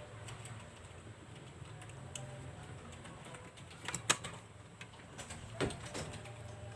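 Faint clicks and taps of plastic laptop parts being handled and fitted back in place, with a sharper click a little after four seconds in and another about a second later.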